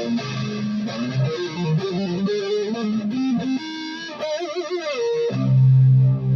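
Made-in-Japan Jackson reverse-headstock electric guitar playing a quick single-note lead run. About four seconds in, the notes waver widely in pitch. Then a loud low chord is struck and left to ring.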